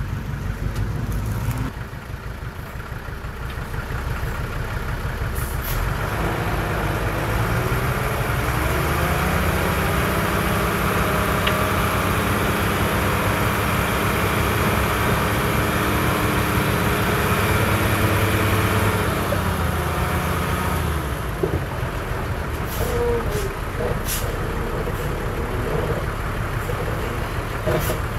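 Heavy diesel engine revving up about six seconds in, running hard at high revs for some twelve seconds, then dropping back toward idle. A few short, sharp sounds come near the start and again near the end.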